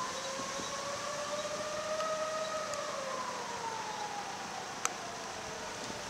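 Fire engine siren sounding one slow wail: the pitch rises over the first couple of seconds, then falls away.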